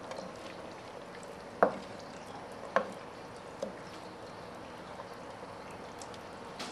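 A wooden spoon stirring thick chili in a large stockpot, with sharp knocks of the spoon against the pot, the loudest about one and a half and nearly three seconds in.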